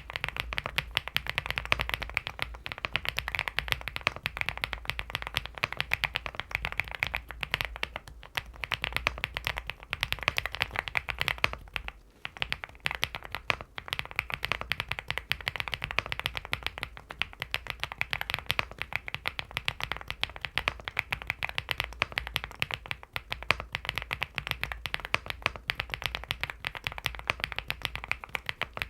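Steady, fast typing on a LEOBOG Hi75 mechanical keyboard fitted with factory-lubed Owlab London Fog linear switches: a dense run of key clacks, with a brief pause about twelve seconds in.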